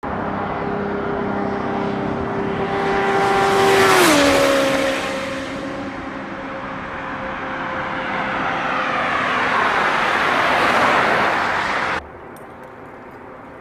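A motorcycle passing at high speed, its high steady engine note dropping sharply in pitch as it goes by about four seconds in. A rush of further vehicles builds after it and cuts off abruptly near the end.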